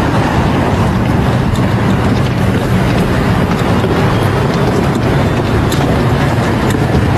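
Steady rumbling hiss of outdoor street ambience, with no distinct events standing out.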